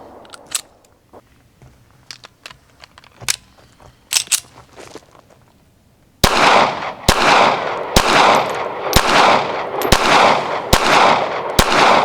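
Ruger Security-380 pistol firing .380 ACP full metal jacket rounds: a few faint, scattered clicks, then from about six seconds in a steady string of shots roughly one a second, each trailing off in a short echo. These are break-in shots from the brand-new pistol.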